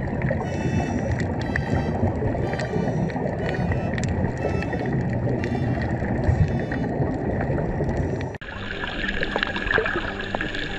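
Underwater sound picked up by the camera's own microphone: a steady low rush of water against the housing. About eight seconds in it changes abruptly to a brighter hiss full of small crackling clicks.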